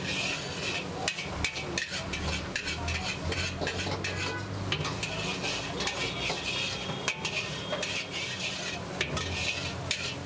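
Metal ladle stirring and scraping around a large kadai of bubbling chicken gravy, with a steady sizzle and many sharp metal scrapes and clinks.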